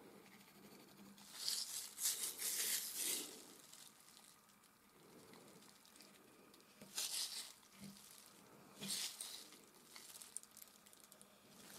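Palette knife scraping and spreading oil paint, in hissy strokes: a run of strokes lasting about two seconds, beginning about a second in, then two short strokes later on, and a few light touches near the end.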